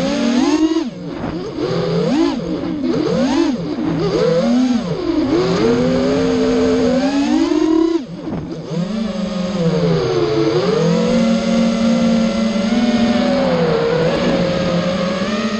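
Racing quadcopter's brushless motors (Skytzo 2204 2500 KV) spinning 5-inch three-blade props, whining in a pitch that swoops up and down with the throttle. The pitch drops sharply about a second in and again about eight seconds in, then climbs back, and holds steadier over the last few seconds.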